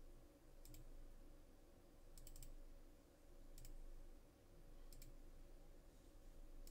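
Faint computer mouse clicks over a quiet steady hum: single clicks spread through, with a quick run of three or four about two seconds in.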